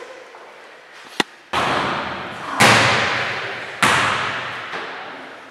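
A ball hitting the hard surfaces of a sports hall with three heavy thuds about a second apart, each ringing on in the hall's echo, the middle one loudest. A short sharp click comes just before the first thud.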